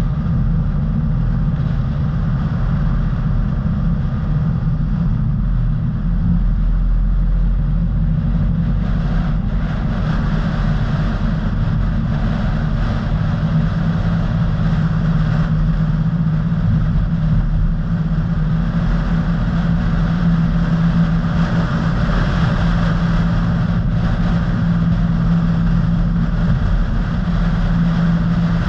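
A car driving at a steady pace, heard from inside the cabin: a continuous low rumble of engine and tyre noise. A steady low hum in it grows stronger about halfway through.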